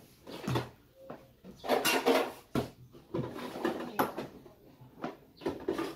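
Bread dough being worked by hand on a wooden table: irregular thumps, knocks and handling noises as pieces are pressed and rolled.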